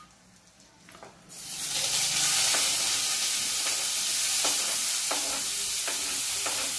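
Chopped onion hitting hot oil in a frying pan, setting off a loud, steady sizzle that starts about a second in, with a few light clicks of a utensil in the pan.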